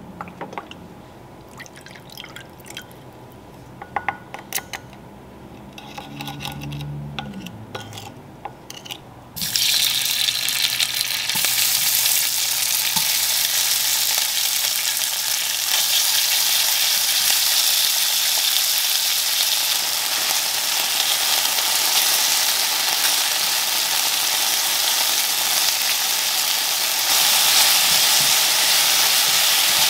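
Light clicks and taps while a sauce is mixed in a ceramic bowl with a wooden spoon. About nine seconds in, a sudden loud, steady sizzle starts as thinly sliced beef goes into hot oil in a frying pan, and it keeps sizzling while the beef sears and is tossed with tongs.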